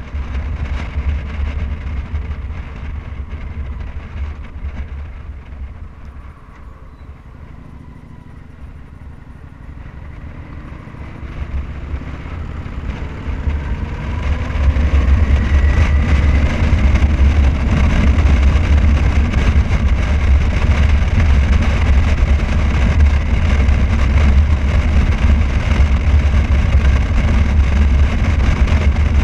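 A vehicle driving on a highway: a heavy low rumble of road and wind noise. It is quieter for a few seconds in the first half, then swells over several seconds with a rising whine as the vehicle picks up speed, and stays loud and steady for the second half.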